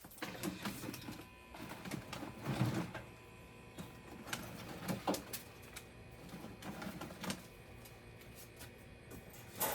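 Irregular light clicks and knocks as green loofah gourds are handled and set down on a wire dog-cage grate to dry, with a few duller thumps about two and a half seconds in.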